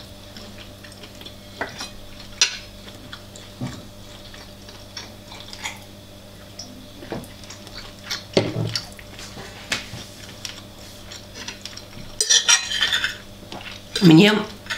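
Eating utensils clicking and scraping against a dish of noodles during a meal, in scattered separate clicks, with a busier stretch of clatter near the end.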